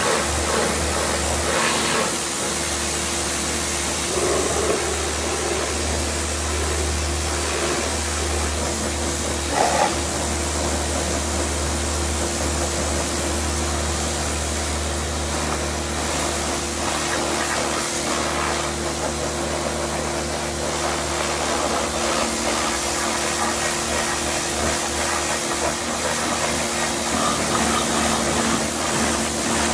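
Pressure washer running steadily, its pump humming under the hiss of the water jet spraying onto a motorcycle, with a short louder burst about ten seconds in.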